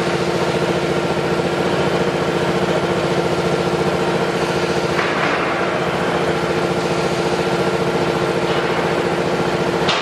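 Mini pile driver running steadily, its engine and driving head making a fast, even pulse.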